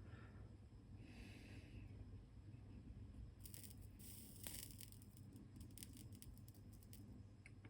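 Faint sizzling crackle of flux and solder as a soldering iron heats a wire joint on a 5-pin DIN plug pin, from about three and a half seconds in, over a low steady room hum.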